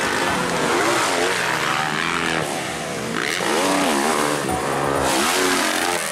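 Several 250cc motocross bike engines running on the track, their pitch rising and falling as the riders rev and shift, overlapping one another.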